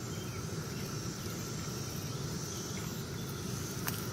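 Steady, distant chorus of 13-year periodical cicadas (Magicicada), a continuous high drone that the speaker likens to weed whackers in the background. A single faint click near the end.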